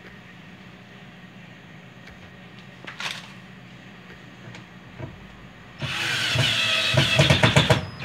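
Cordless drill-driver driving a screw into the metal mounting plate that holds a washing machine's new spin actuator, starting about six seconds in and pulsing rapidly near the end as the screw tightens. Before it, only a faint hum and a single short click.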